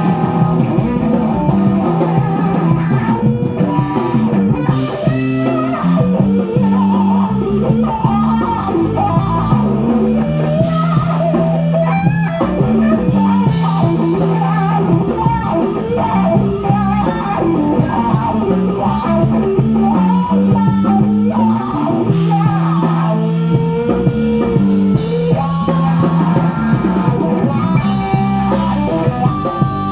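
Live band playing an amplified rock tune: a guitar carrying the melody over a bass line and drum kit.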